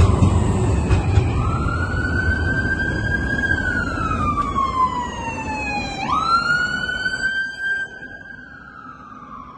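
An emergency vehicle's siren wailing, its pitch rising quickly and then falling slowly in long cycles about five seconds apart. Underneath it, the low rumble of a passing tram fades out near the end.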